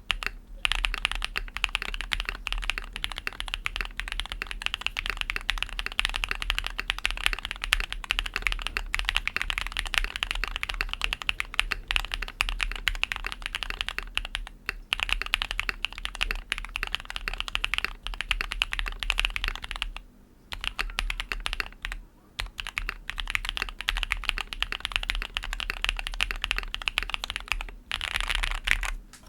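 Mobula80 gasket-mount mechanical keyboard with lubed Durock POM linear switches, a polycarbonate plate and Milkyway ICHIGO keycaps being typed on quickly: a steady stream of key clacks, broken by a few brief pauses.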